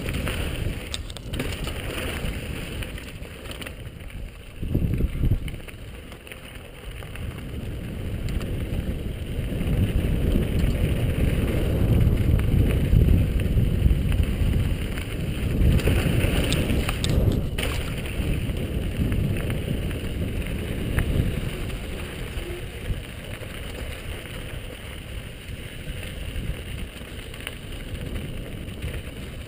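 Downhill mountain bike riding over loose, rocky dirt trail: a continuous rumble of tyres crunching on gravel and the bike rattling over rocks, with wind buffeting the helmet-mounted microphone. It gets louder in the middle as speed picks up, with a thump about five seconds in and a few sharp clacks a little past halfway.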